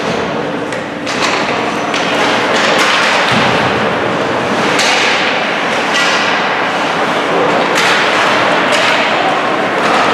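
Ice hockey play: skates scraping and carving on the ice under a steady wash of rink noise, with repeated sharp thuds and clacks from the puck, sticks and boards.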